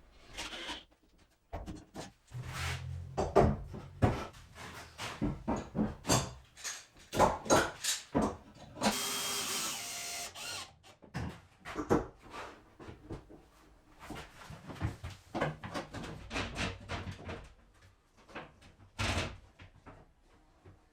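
Workshop work sounds: a run of clicks, taps and knocks from tools and parts being handled, with a short burst of a power tool running about nine seconds in.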